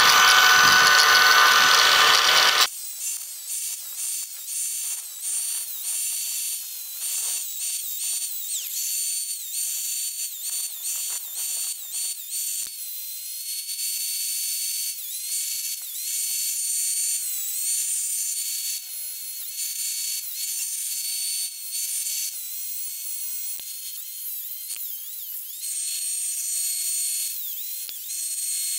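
Cordless angle grinder with a cut-off wheel cutting through bolt heads. The first couple of seconds are a loud, heavy cut. After that it runs on a high whine that dips in pitch each time the wheel bites into a bolt and climbs back as it frees, over many short cuts.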